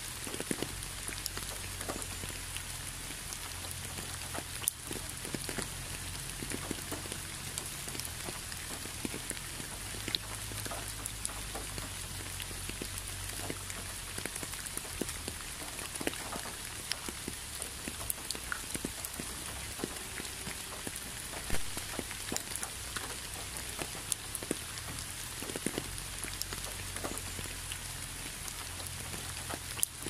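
Steady rain falling, with a constant hiss and many individual drops ticking sharply.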